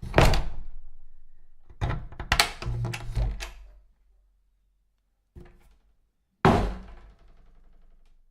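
Wooden door shutting with a heavy thud, then rattled in its frame in a quick run of knocks for about two seconds. A light knock follows, then a second hard close near the end.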